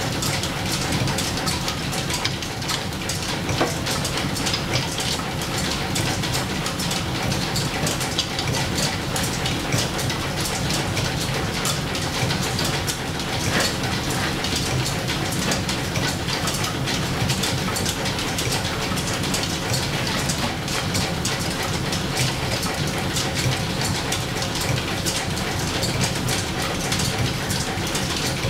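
Belt-driven antique lathe and overhead line shaft running, with flat leather belts and gears making a steady, dense, rapid clatter.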